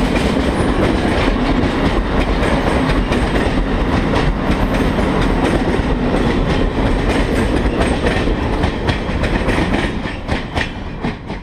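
Amtrak passenger cars rolling past at speed: a steady rumble of wheels on rail with rapid clicking over the rail joints, easing a little as the last car clears near the end.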